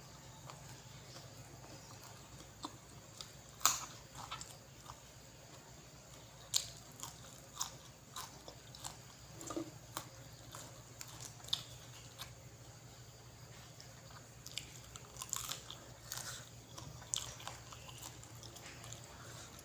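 A person chewing and biting into nam tok moo (spicy grilled pork salad), with irregular wet smacks and crunches. A low steady hum runs underneath.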